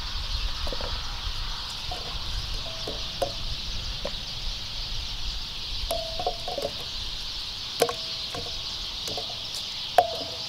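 Chickens clucking in short, repeated calls over a steady high chirring of insects, with a couple of light clicks about eight and ten seconds in as raw potato slices are laid into a cast-iron Dutch oven.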